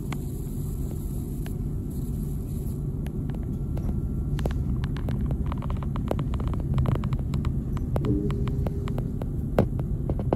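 Old tram running on its rails, heard from on board: a steady low rumble and hum with many sharp clicks and rattles from the wheels and car body, growing busier about halfway through.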